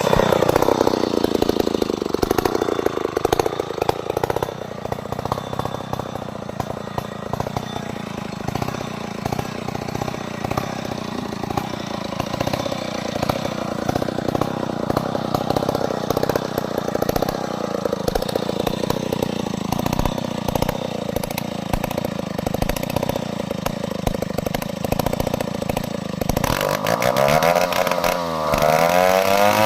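Chainsaw engine running hard, cutting through a log; it starts suddenly, its note sagging as it takes the load, and near the end the pitch rises and falls rapidly.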